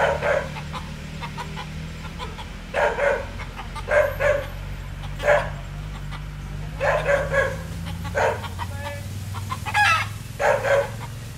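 Chickens clucking in short bursts that come every second or two, over a steady low hum.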